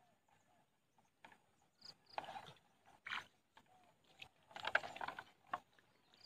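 Footsteps splashing and squelching through shallow muddy water: irregular wet sloshes and clicks, the loudest cluster about three-quarters of the way in.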